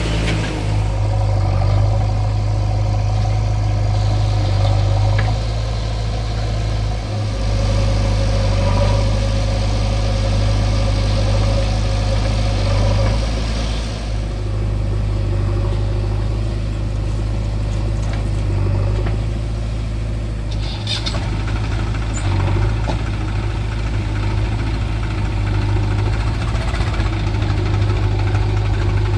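Heavy diesel engine running steadily with a deep hum, from a JCB 3DX backhoe loader at work loading tractors. The engine note shifts about halfway through and again a few seconds later.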